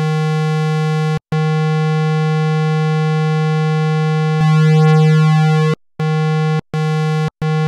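Two Behringer 2600 Blue Marvin analog synthesizers playing the same low note from oscillator one, a buzzy square-wave tone. The note is held twice, the second time growing louder about two-thirds through with a slow shimmer in its upper harmonics, then struck four more times in short presses.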